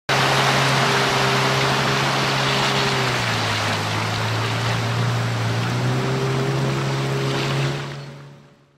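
A small boat's outboard motor running steadily under way, with a constant low drone over the rush of water and wind. The drone dips slightly in pitch for a couple of seconds midway, and the whole sound fades out near the end.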